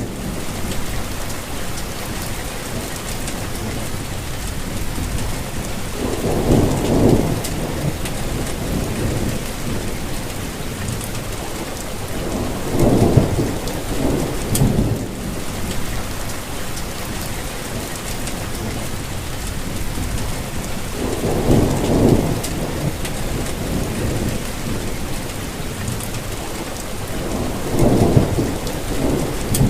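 Steady rain falling, with four low rumbles of thunder, each lasting a second or two, spaced several seconds apart.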